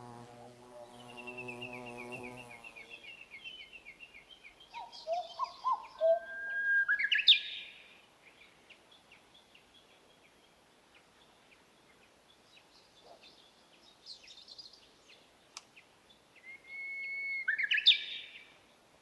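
Wild songbirds singing: a short descending trill, then twice a song of held notes that sweeps sharply up into a quick flourish, loudest near the middle and again near the end. A flying insect buzzes for the first couple of seconds.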